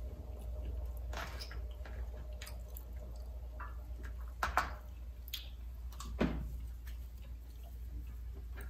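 Eating sounds: a plastic fork picking at jerk chicken in a plastic takeout container, with scattered light clicks and soft chewing smacks over a low steady hum.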